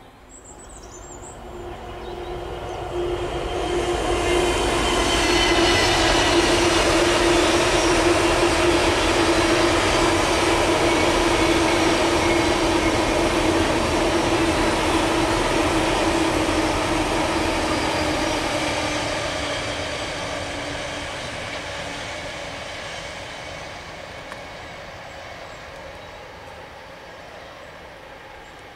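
Freight train of hopper wagons hauled by a Freightliner Class 66 diesel locomotive passing. The sound builds over the first few seconds, runs loud and steady with a droning tone for about a dozen seconds, then slowly fades as the train moves away.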